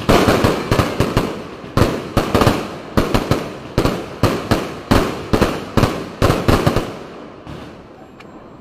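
Fireworks display: a rapid run of loud bangs from bursting aerial shells, about three a second, each with a short echo, thinning out about seven seconds in.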